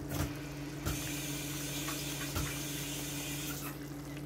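Kitchen faucet turned on with a click and left running for about three seconds before it is shut off, over a steady low hum.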